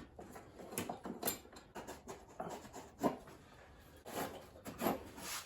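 Irregular light clicks and knocks of hand tools and small metal parts being handled while working on a mower handle, about eight short taps spread over a few seconds.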